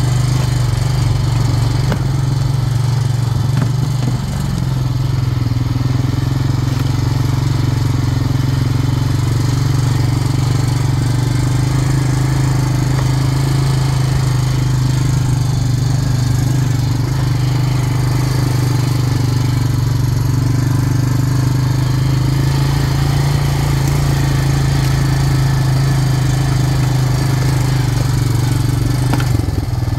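Four-wheeler (ATV) engine running steadily while riding, a constant low drone that shifts slightly about four seconds in.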